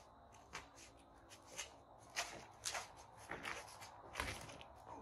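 Sneakers scuffing and shuffling on a concrete driveway during boxing footwork, in quick irregular strokes, with soft thuds of gloved punches. The heaviest, deepest thud comes about four seconds in.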